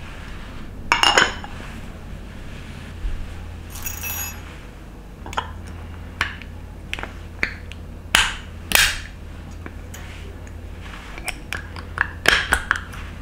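Glass clinks and clicks of a WECK glass jar being closed: the glass lid knocking on the jar, a few strokes ringing briefly, then a quick run of clicks near the end as the steel clips snap onto the lid and rim.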